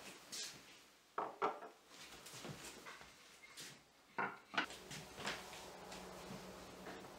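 Ceramic dishes and a wooden cutting board being set down on a kitchen countertop: a few light clinks and knocks, the loudest pair about four seconds in.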